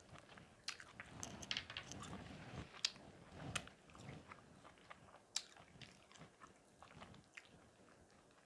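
Faint, scattered wet clicks and crackles of cooked king crab leg meat being pulled apart by hand, busier in the first half and thinning out later.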